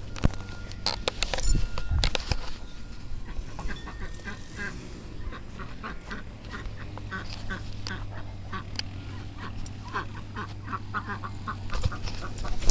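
Domestic ducks quacking in a quick series of short calls, several a second, with a few sharp knocks in the first couple of seconds.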